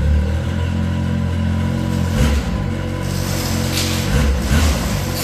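Yamaha Sidewinder snowmobile's turbocharged three-cylinder four-stroke engine idling just after start-up, its note shifting a couple of times. A sectional garage door rattles as it is raised.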